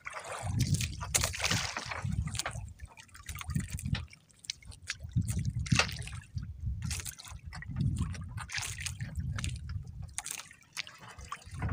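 Seawater sloshing and dripping around a small fishing boat, with irregular splashes over a low uneven rumble.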